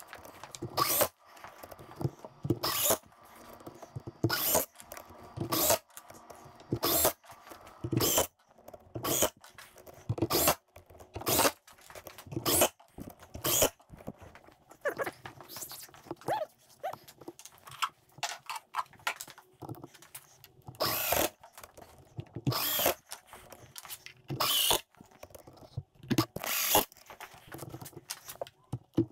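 Cordless drill driving screws into pallet wood in many short bursts, about one a second.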